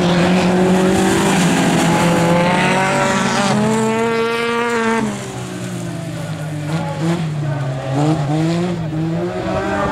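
Autocross racing cars' engines at high revs on a dirt track: one engine note climbs steadily in pitch, then drops away suddenly about five seconds in, leaving a quieter, wavering engine note.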